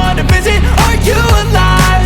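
Background music with a steady beat: a pop track with a bass line, sustained chords and drum hits about twice a second.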